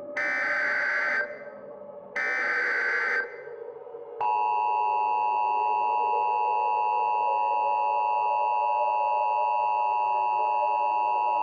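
Emergency Alert System SAME header: two data bursts of about a second each, a harsh electronic squeal. About four seconds in, the steady EAS two-tone attention signal starts and holds, over a low background drone.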